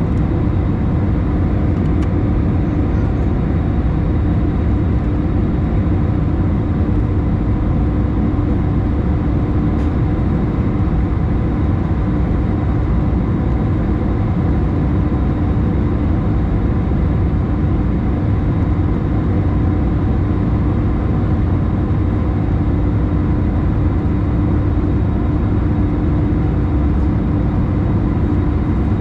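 Steady cabin noise of an Airbus A321 climbing after takeoff: a constant drone of engines and airflow with a steady low hum running through it.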